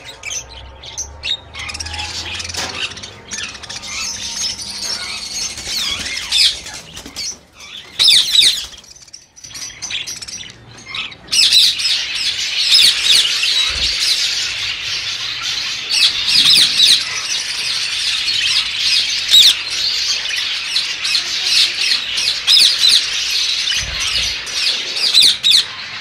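Many caged budgerigars and lovebirds chattering and squawking together in a dense, high twittering. It drops away briefly about nine seconds in, then comes back louder.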